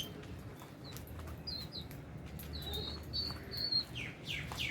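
A flock of aviary lovebirds and budgies chirping: short, high chirps throughout, then a quick run of falling squeaks near the end.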